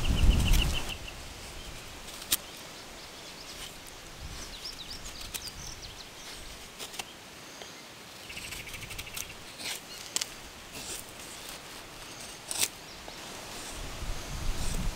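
Fixed-blade bushcraft knife shaving curls down a wooden stick to make a feather stick: faint scraping strokes with a few sharp clicks, the loudest about 2 and 12.5 seconds in. A low rumble fills the first second, an insect trills in rapid pulses at the start and again about 8.5 seconds in, and small birds chirp.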